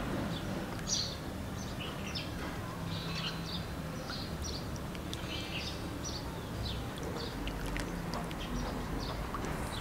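Small birds chirping on and off in short high calls over a steady low hum, with a few faint clinks of a steel ladle in a glass bowl as curry is served.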